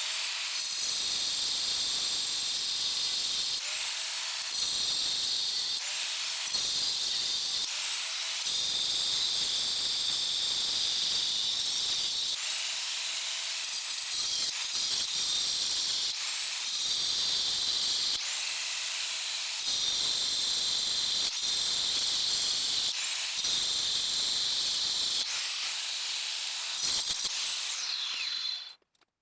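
High-speed power tool fitted with a saw-type cutting blade, running with a high-pitched whine and cutting into a seized suspension bolt and bushing in short repeated passes, with brief dips in load every second or two. It winds down and stops near the end.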